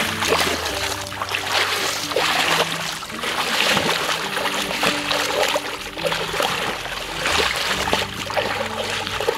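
Bare feet tramping and squelching in wet mud and shallow water, a continuous run of wet splashes, with background music playing underneath.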